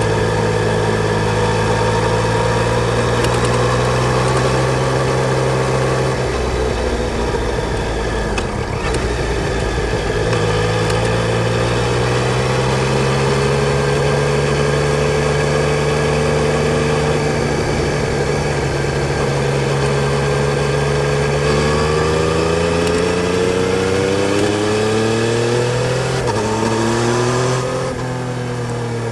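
Yamaha Tracer 900 GT's three-cylinder engine running. Its pitch holds fairly steady, dips briefly about six seconds in, then climbs over several seconds in the last third and drops sharply near the end.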